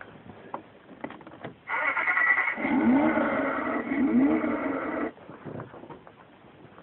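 Ride-on toy car's built-in engine sound effect playing through its speaker for about three and a half seconds, with two rising revs, starting and cutting off suddenly. A few light clicks come before it.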